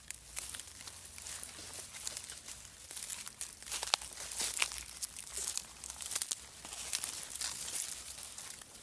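Dense, irregular rustling and crackling, with many small sharp crackles close together.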